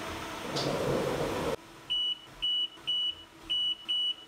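A steady rush of machine noise stops abruptly about a second and a half in. It is followed by a series of short, high electronic beeps, about two a second, from the CNC vertical mill during its part-probing cycle.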